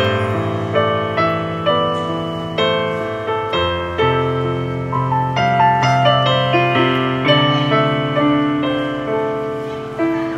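Piano music: a slow melody over chords, each note struck and then fading.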